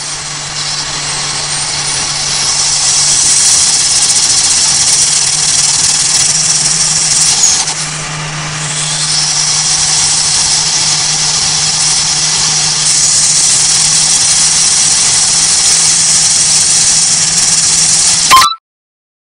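Turbocharged Toyota Avanza Veloz 1.5 at highway speed on light throttle, heard from the cabin: a steady high-pitched turbo spool whistle over a low engine drone. It dips briefly about eight seconds in and cuts off abruptly near the end.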